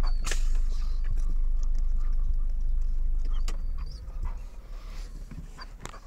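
Car cabin rumble with a pug panting. The rumble drops away about four seconds in, leaving the panting quieter and more open.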